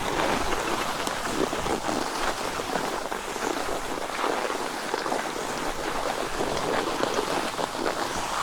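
Skis sliding over packed snow while being towed uphill on a T-bar lift, a steady crackling hiss.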